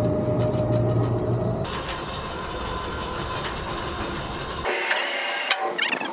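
The engine of a 1926 Ahrens-Fox fire truck running as the truck is driven slowly up a trailer's loading ramps, with a steady low hum in the first couple of seconds. Near the end the low rumble drops away and a few sharp clanks and knocks are heard.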